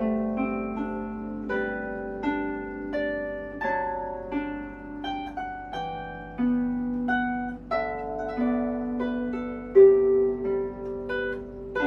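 A harp played solo: a melody of plucked single notes that ring and fade, over low bass notes held a second or two each. One note stands out louder about ten seconds in.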